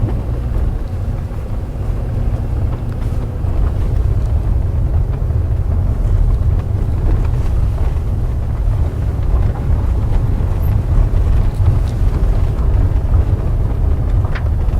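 Cabin sound of a VW Polo Sedan driving over uneven asphalt: a steady low road rumble with a few faint knocks from the front end, which the owner takes for the steering rack and strut mounts.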